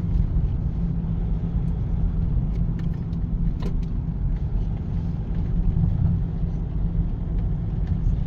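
Steady low road and engine rumble heard from inside a moving car, with a few faint clicks around the middle.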